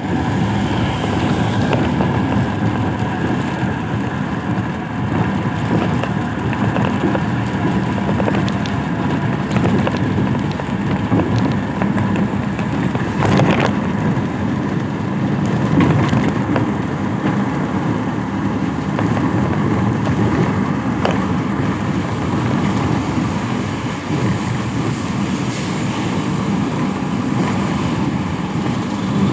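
Steady road traffic: a continuous rumble of vehicles, with a few sharp clicks along the way.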